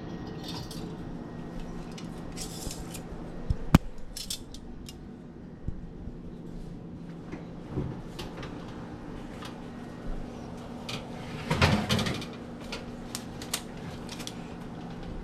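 Small hard objects clinking and knocking as household items are handled and moved about. There is a sharp knock about four seconds in and a short burst of clatter near the end, over a steady low hum.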